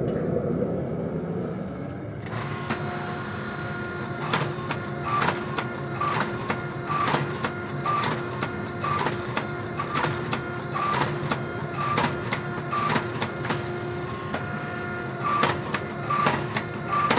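Hydraulic forging press running: a steady motor-and-pump hum with a sharp click about once a second. It starts about two seconds in, taking over from a rushing noise.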